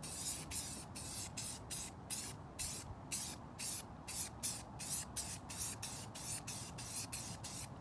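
Aerosol spray paint can (rattle can) hissing in short, quick bursts, about three a second, as cobalt blue paint is dusted onto a seat.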